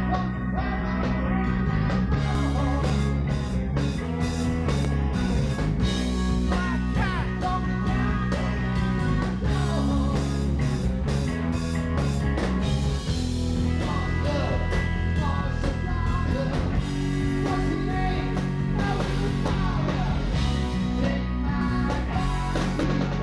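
Live rock band playing: electric guitars and a drum kit, with a singer's vocals on top.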